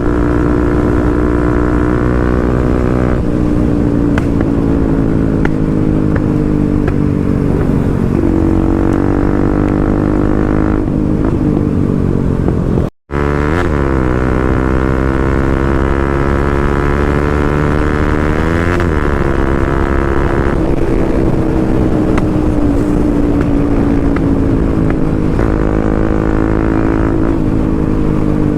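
Motorcycle engine running under way, its note rising and falling with throttle and gear changes. The sound cuts out for an instant about halfway through.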